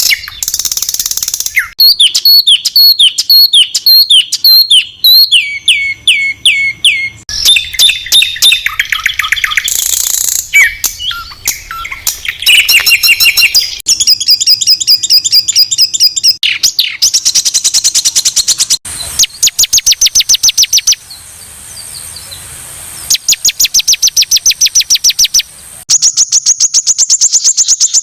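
Songbird masteran song: loud, high-pitched 'tembakan kasar' (harsh shot) calls in quick succession. Down-sweeping notes give way to fast trills and long runs of rapid, identical repeated notes, with a brief lull about three quarters of the way through.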